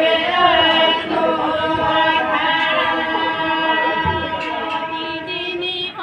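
A group of voices singing together without accompaniment, on long held notes.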